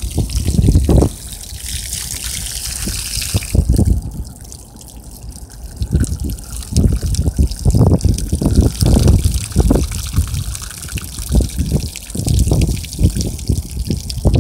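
Water pouring from a plastic gallon jug onto a wooden board, then trickling and spraying out of bullet holes in the water jugs onto grass. Irregular loud low rumbles come and go over it, heaviest in the second half.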